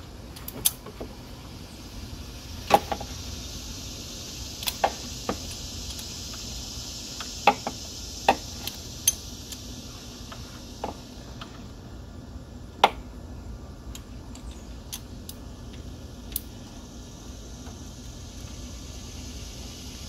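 Sharp, irregular clicks and clinks of a ratchet, socket extension and hand working down on a minivan V6's front spark plugs, about ten of them spread across the stretch, with the loudest about three seconds and thirteen seconds in.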